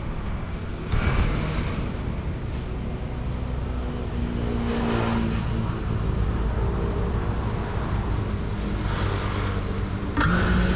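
Low outdoor rumble on the drone-mounted GoPro's microphone while the GEPRC Cinelog 35 quadcopter sits on the ground; about ten seconds in, its brushless motors suddenly arm and spin at idle with a steady high whine, ready for takeoff.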